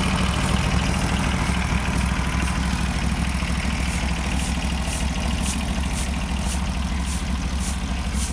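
Portable bandsaw sawmill's gasoline engine running steadily, with a short high hiss repeating about twice a second.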